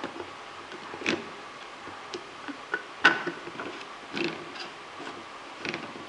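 Scattered plastic clicks and taps from a lens-shaped travel mug and its lens-cap lid being handled, the sharpest about three seconds in.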